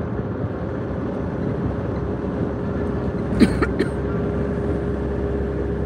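Steady road and engine noise heard inside a car cruising on a highway, with a constant low hum. There is a brief cluster of clicks about halfway through.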